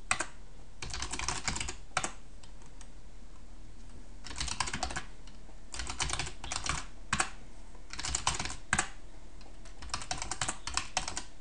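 Typing on a computer keyboard: short runs of quick keystrokes separated by pauses, with a few single key presses in between.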